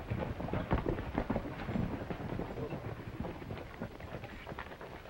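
Horses' hooves clopping and shuffling on dirt in irregular knocks, as horses are moved about at a hitching rail.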